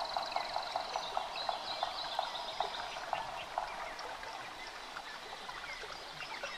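Running water of a forest stream with small birds chirping over it.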